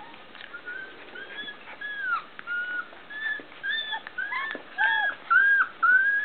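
Puppy whining in a string of short, high-pitched cries, each rising and falling in pitch. The cries start faint and grow louder and closer together, about two a second near the end.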